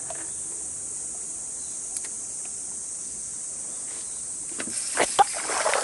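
Steady high-pitched drone of insects singing in the bankside trees. Near the end a burst of sharp knocks and rustling breaks in and grows louder.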